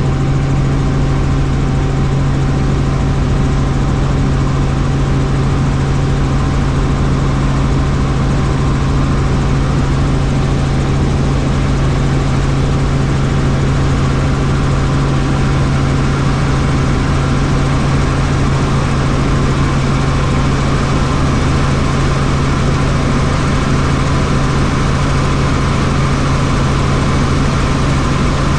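Helicopter in flight: the steady, even drone of its engine and rotor, with a strong low hum.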